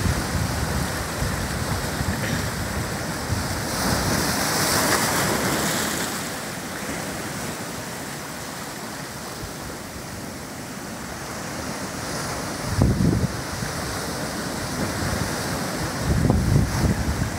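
Ocean surf breaking and washing over a rocky lava-rock shore: a continuous wash of white water that swells into a louder hiss a few seconds in, eases off in the middle, and builds again. Wind buffets the microphone in gusts later on.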